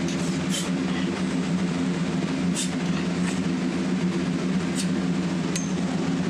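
Steady low mechanical hum, like a motor or engine running, with a few faint sharp ticks scattered through it.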